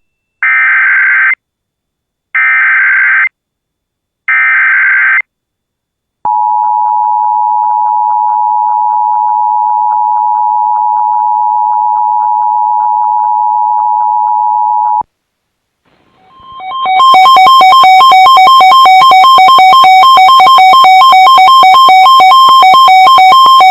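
Emergency Alert System signals: three short screeching SAME data header bursts, then the steady two-tone EAS attention signal for about nine seconds. About a second after it stops, a second, louder two-tone alarm tone swells in and holds.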